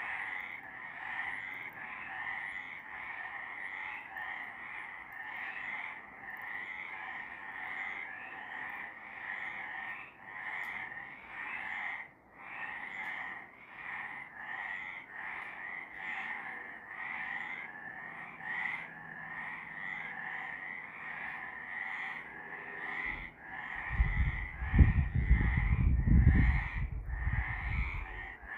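Chorus of several frogs calling at night, overlapping calls repeating about twice a second without pause. Near the end a loud low rumble joins in for a few seconds.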